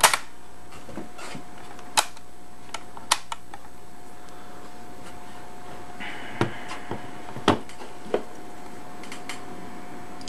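Scattered sharp clicks and knocks from handling a Webcor Microcorder EP 2104 portable reel-to-reel tape recorder as its tape reels and case are moved, about seven in all with gaps of a second or more between them.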